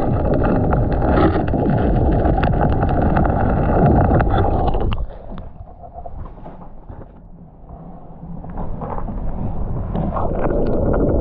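Strong gusting wind buffeting the microphone, a dense rumble with crackling. It drops away suddenly about five seconds in, then builds back up over the last few seconds.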